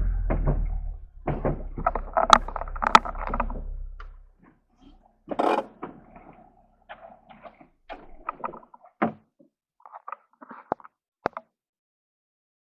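Small engine running at a low, steady pitch, fading out about four seconds in, with irregular clatter; then scattered sharp knocks and clicks.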